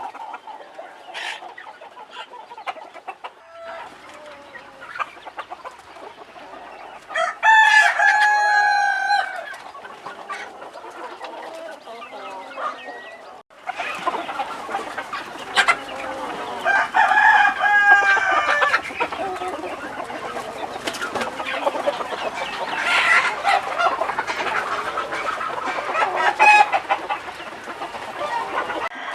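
A flock of free-range chickens clucking, with a rooster crowing loudly twice, once about a quarter of the way in and again a little past the middle.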